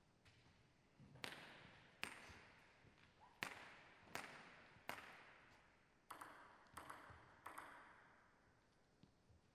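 A table tennis ball clicking sharply about ten times, at irregular gaps of under a second, each click ringing out in the hall's echo.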